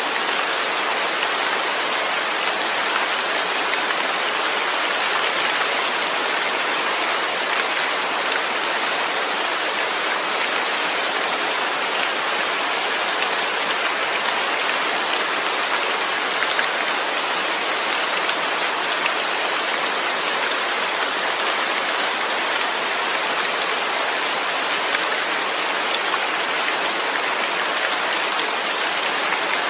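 Steady, even rain falling, a continuous hiss of drops with no breaks.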